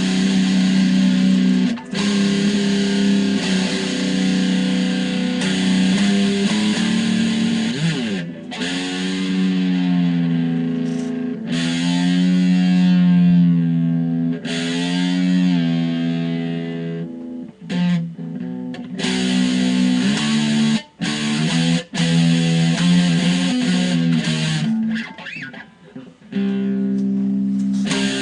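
BC Rich Skull Warlock electric guitar played solo: held chords and notes, some bent so the pitch wavers, with several sudden stops in the second half.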